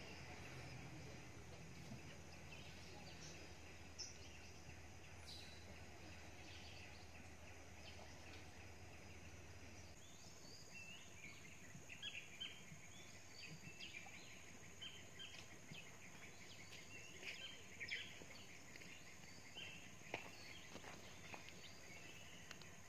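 Faint riverside ambience: a low steady hum for the first half, then birds chirping in short calls over a steady high insect drone.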